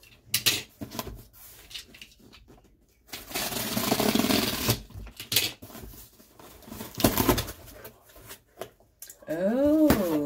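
Box cutter slitting the packing tape on a cardboard shipping box: scattered clicks, then a scraping, tearing noise for about a second and a half, followed by knocks of cardboard flaps being pulled open. A short voice sound near the end.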